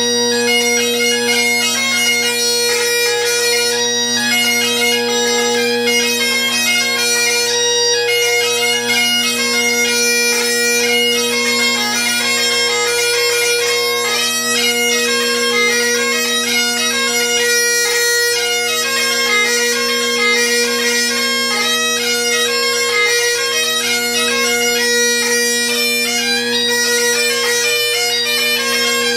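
Great Highland bagpipe playing a jig: a quick chanter melody over the steady, unbroken hum of its drones.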